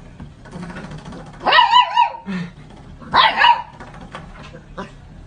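A dog vocalizing: two short cries with a wavering pitch, about a second and a half apart.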